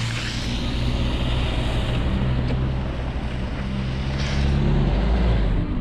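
A four-wheel-drive's engine running steadily: a low hum with a hiss of noise over it.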